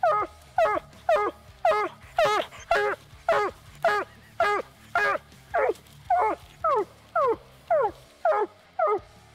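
Walker coonhound giving a steady tree bark: short chop barks about two a second, each one falling in pitch. It is the sound of a hound that has a raccoon up the tree.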